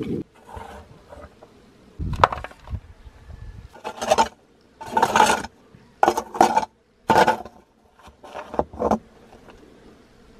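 A series of short scrapes and knocks, about eight in all, with a sharp knock about two seconds in.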